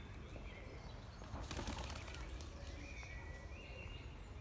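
Pigeon flapping its wings as it takes off, a brief flurry about a second and a half in, with birds chirping in the background.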